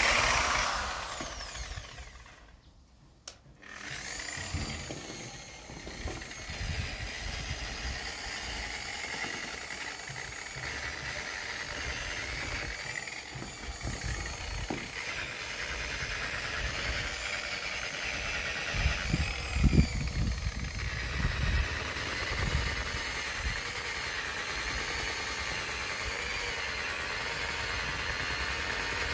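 Electric rotary polisher with a foam pad running against mattress fabric: a steady motor whine that wavers in pitch as the pad is pressed and moved. The tool drops almost to quiet about two to three seconds in, then runs on, with a few low bumps about two-thirds of the way through.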